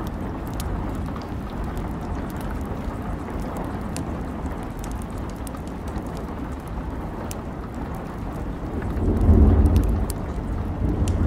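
Steady rain with scattered drip-like taps, and a low rumble of thunder swelling about nine seconds in.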